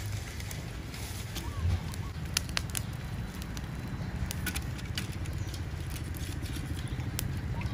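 Charcoal grill crackling under rotisserie baskets of chicken: scattered sharp pops and clicks from the embers over a light hiss, above a steady low rumble.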